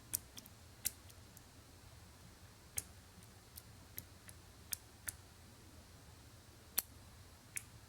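Faint, irregular light metallic clicks of a lock pick and tensioner working the pins of a pin-tumbler euro cylinder lock, about ten clicks spread unevenly, the sharpest one a little before the end.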